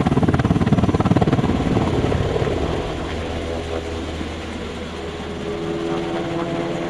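Black Hawk army helicopter in flight: the rotor blades chop in a rapid beat that eases off after about three seconds into a steadier engine hum, with a steady whine coming in during the second half.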